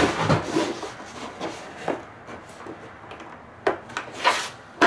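Hands fumbling a charger cable and plug against a fabric bag and plastic body panels: irregular rubbing and scraping, with a couple of louder scrapes near the end.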